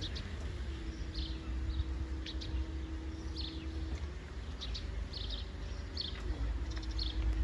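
Small birds chirping in short repeated calls over a steady low hum and rumble from the engine of a slowly passing canal cruiser.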